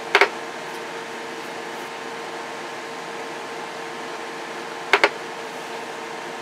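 Steady hum of bench test-equipment fans with a constant tone. It is broken by a sharp double click near the start and another about five seconds later, as the Galaxy 33 CB radio is keyed into transmit on high power and then released.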